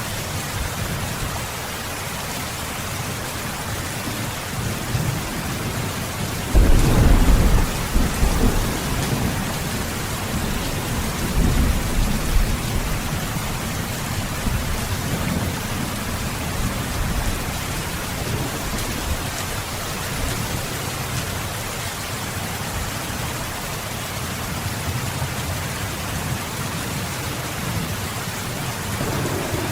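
Steady rain falling, with low rolls of thunder: a loud one about six and a half seconds in and a weaker one around eleven seconds.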